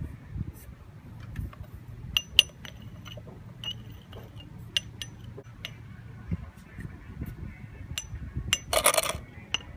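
Metal rod and funnel clinking against a small round sand-art glass bottle: a scattered string of light taps, each ringing at the same high pitch. Near the end comes a short rustling hiss.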